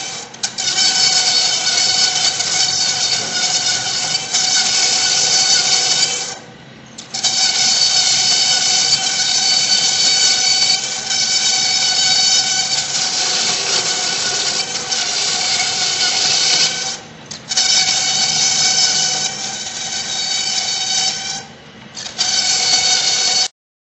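Bamboo chopstick-making machine running with a steady high whine over hiss. It drops away briefly three times, about a quarter of the way in, about two-thirds in and near the end, then cuts off suddenly.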